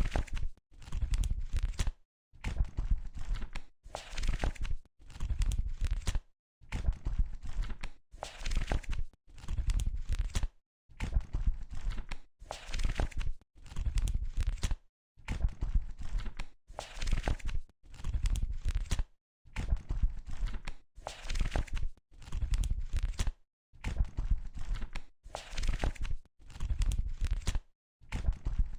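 Book pages being turned one after another, a papery rustle for each page with a short pause between, about one turn every two seconds.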